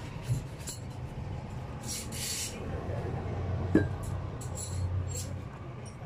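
Light metallic clicks and clinks, with a short scrape about two seconds in, as the aluminium housing and cover of a washing machine transmission are handled on a concrete bench, over a steady low hum.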